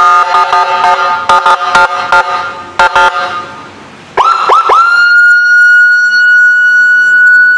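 12-tone electronic siren module sounding through its speaker, loud. It starts with a stuttering, chopped multi-note horn pattern for about three seconds. After a brief dip comes a second tone: three quick rising sweeps that settle into a steady high-pitched wail.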